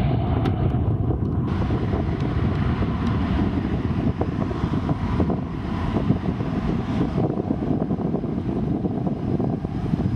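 Boeing 737-800's CFM56-7B26 turbofan engines at takeoff thrust as the jet accelerates down the runway: a steady, heavy rumble, with wind buffeting the microphone.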